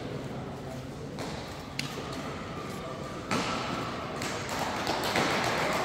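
Badminton racket striking a shuttlecock with a sharp crack about two seconds in, and another sharp hit about a second later, in a large echoing sports hall with voices in the background.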